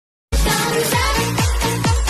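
Upbeat electronic dance-pop music with a steady kick-drum beat about twice a second, starting abruptly a moment in.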